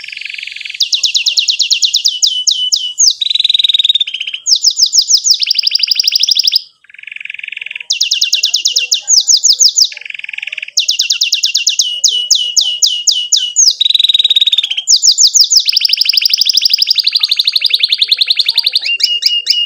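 Domestic canary singing continuously: fast rolling trills of rapidly repeated down-slurred notes alternating with lower, buzzier trills, the phrase changing every second or two with a brief break partway through.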